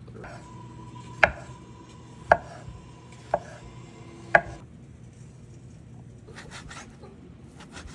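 Kitchen knife chopping on a cutting board: four sharp knocks about a second apart, with a faint steady tone underneath.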